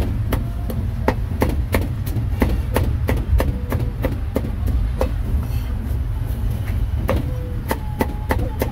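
Cleaver chopping grilled meat on a wooden chopping block: sharp, even chops about three a second, pausing for more than a second midway, over a steady low rumble.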